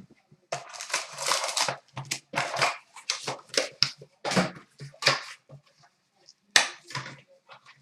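Sealed trading-card box being opened by hand: plastic shrink-wrap and packaging crinkling and tearing, with a run of sharp rustles and crackles.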